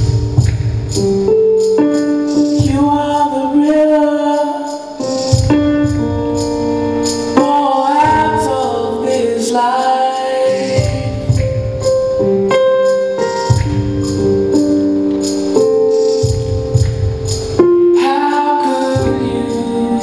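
Music playing for the dance: a song with singing over sustained notes, light jingling percussion and a bass line that comes and goes.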